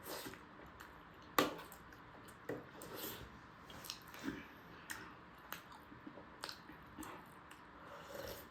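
Close-up mouth sounds of eating: irregular wet chewing and smacking of soft momo dumplings, with small clicks about once or twice a second.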